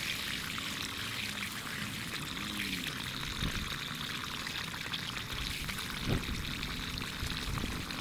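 A steady stream of water falling and pouring, with a papaya being rinsed in it.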